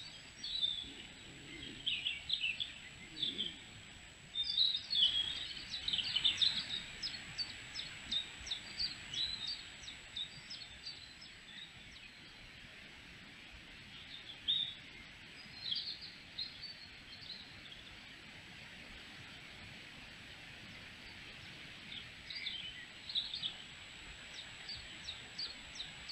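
Woodland songbirds singing and chirping in quick runs of short notes, busiest in the first third and again near the end, over a steady background hiss.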